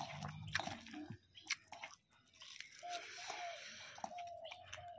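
Wet squishing and light clicking of rice being mixed with curry by hand in a steel bowl. A short repeated note sounds faintly in the background in the second half.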